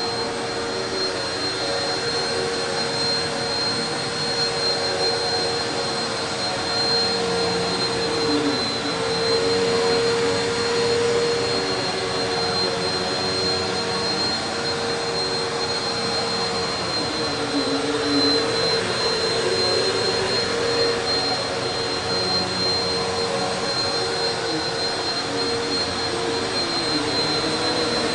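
Eureka PowerSpeed Pro Swivel Plus (NEU192A) bagless upright vacuum cleaner running steadily: a rush of air with a constant motor hum and a high whine above it, rising and falling slightly in loudness.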